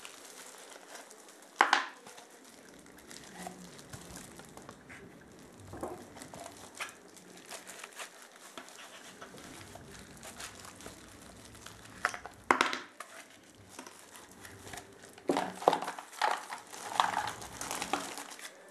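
Cardboard packaging and plastic wrap being handled by plastic-gloved hands, in scattered crinkling rustles. There is a sharp burst about two seconds in, another past the middle, and a busier stretch near the end.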